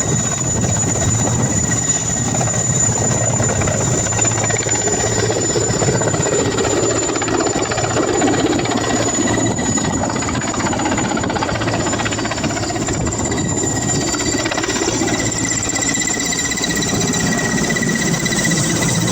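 Helicopter running loudly and steadily: a high turbine whine over a low, churning rotor noise.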